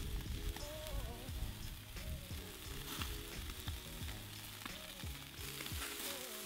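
Beef strip loin steaks sizzling on a charcoal grill's grate as they are basted with garlic oil brushed on with a rosemary sprig.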